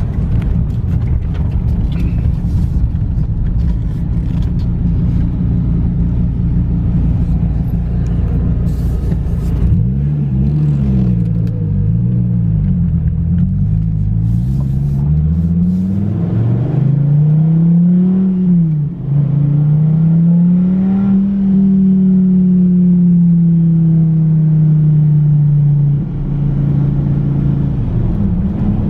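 Dodge Viper GTS's 8.4-litre V10 engine and road noise while driving: a steady low rumble at first, then the engine note rising and falling again and again as it revs, followed by longer pulls broken by a couple of brief dips at gear changes.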